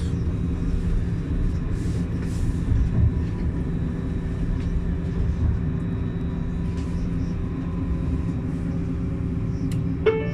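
Alstom Citadis 402 tram running along street track, a steady low rumble heard from the driver's cab. Near the end a short run of falling tones begins: the chime that comes before the next-stop announcement.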